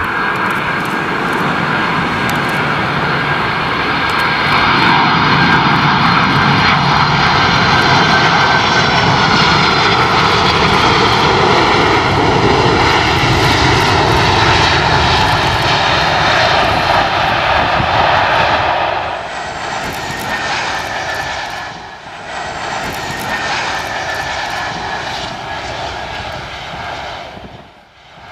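Jet engines of a four-engined Boeing 747 landing, running loud and steady with a whine that slowly falls in pitch. About two-thirds of the way in the jet noise drops to a lower level, then fades near the end.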